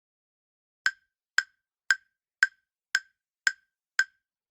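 Countdown-timer ticking sound effect: sharp, even clock-like ticks, about two a second, starting about a second in.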